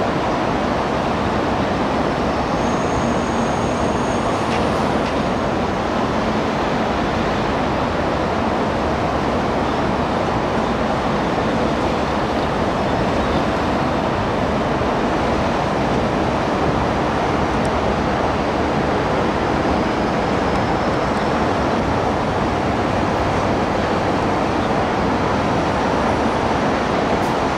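An MTR C-Train, a Chinese-built metro train, running along elevated track, heard as a steady, even noise blended with road traffic, with no distinct peaks.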